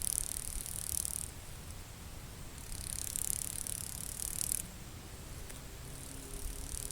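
A tortoise sneezing: hissing bursts of breath, one ending about a second in, a longer one about three seconds in and a fainter one near the end.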